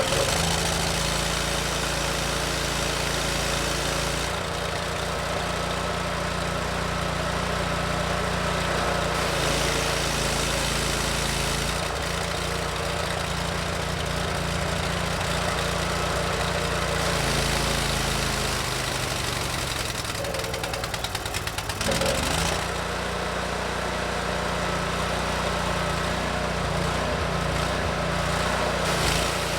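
Landa hot-water pressure washer skid running, its engine and pump humming steadily while the new unloader is being set. The engine note shifts several times as the load changes, with a brief rattle about two-thirds of the way in.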